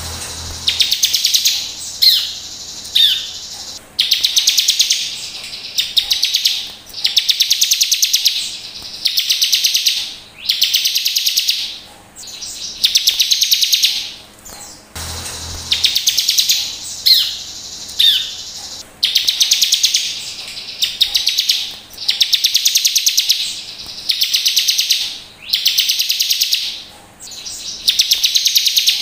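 Bar-winged prinia (ciblek) singing: a string of loud, buzzy rapid trills, each about a second long, one every second or two, with a few sharp short notes between them. The same passage of song plays twice.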